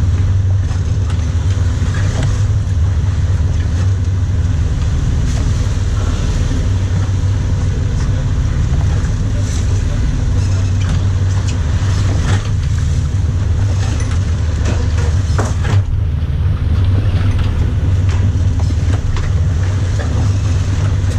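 Sportfishing boat's engine running steadily, a deep, even drone.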